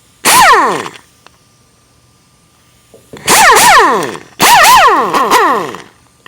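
Air impact wrench run free off the air hose in three trigger pulls. The first is short, with a hissing whir that falls in pitch as the motor winds down. About three seconds in come two longer bursts whose pitch rises and falls as the trigger is pulled and eased.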